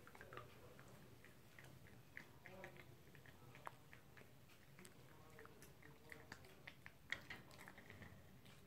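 Faint chewing and gnawing of a toy poodle working on a dog chew, a scatter of small wet clicks and crunches, with one sharper click about seven seconds in.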